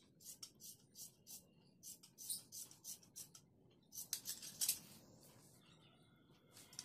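Large tailor's shears cutting through layers of folded fabric: a steady run of short, faint snips, about three a second, with a louder cluster of cuts about four seconds in.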